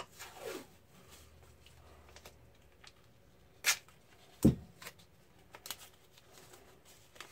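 Hands handling a roll of painter's tape and thin styrene strips on a foam workbench: a few short taps and clicks, two louder knocks near the middle as the tape roll is picked up and set down.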